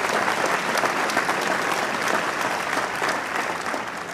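A large audience applauding, dense steady clapping that starts to thin out near the end.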